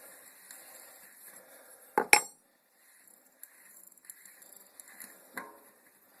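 Metal clinks from a wrench and puller on a bicycle's rear sprocket as it is unscrewed: a sharp double clank about two seconds in, then a few lighter clicks.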